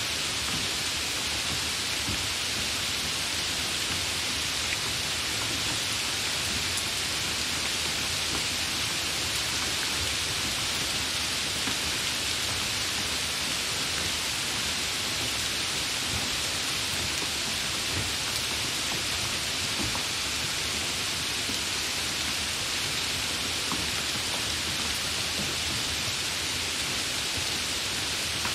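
Steady rain falling: an even hiss of many drops that neither builds nor eases, with faint individual drop ticks.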